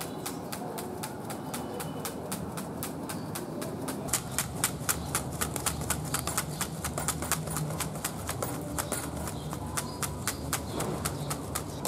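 Dried palm-leaf hand fan flapping rapidly over a charcoal grill, a steady rhythm of sharp swishes about four strokes a second, louder from a few seconds in, over the low rush of the fanned coals.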